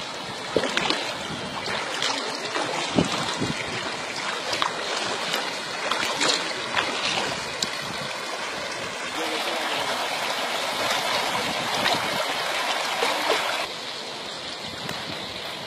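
Floodwater running after heavy rain: a steady rushing with scattered small clicks and splashes, fuller and louder for a few seconds past the middle.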